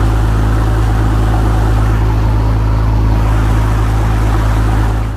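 Fishing boat's engine running steadily as a low drone, with water rushing through the churning wake.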